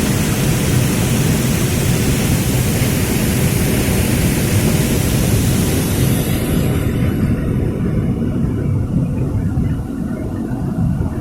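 Waterfall's water rushing, a loud, steady roar. The high hiss fades about two-thirds of the way through, leaving a lower rumble that gets a little quieter near the end.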